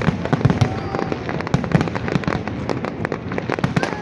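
Fireworks display: aerial shells bursting in quick, uneven succession, a dense run of bangs and crackling with no pause.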